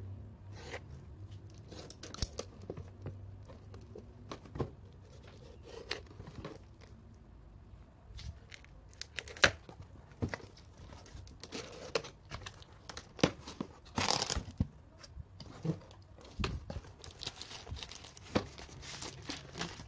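A parcel being cut open: a small cutter knife slitting packing tape and cardboard, with tape tearing and cardboard scraping. It comes as short irregular scrapes and clicks, with one longer tearing stretch about two-thirds of the way through.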